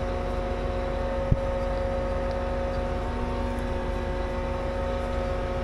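John Deere tractor and air seeder running steadily at a field stop, a constant hum with several fixed tones over a low drone. A single sharp click sounds about a second and a half in.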